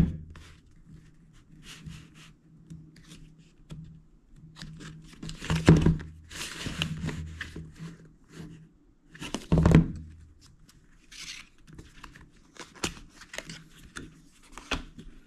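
Paper and cardboard packaging of an Apple Watch box being unsealed and opened by hand: tearing of the paper seal strips, rustling and sliding of card, and scattered small clicks. Two louder knocks come about six and ten seconds in.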